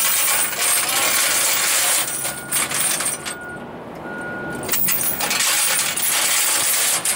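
Steel square-link tire chains clattering and clinking as they are folded and fed into a truck's chain toolbox. The clatter comes in two long stretches with a quieter spell about halfway through.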